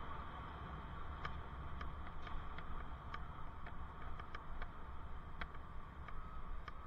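Light irregular ticks and clicks, about one or two a second, from a moving bicycle, over a steady low rumble of riding.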